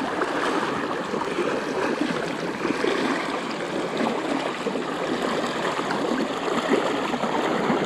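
People wading through a shallow flowing river, the water sloshing and splashing around their legs in an irregular stream over the steady rush of the current.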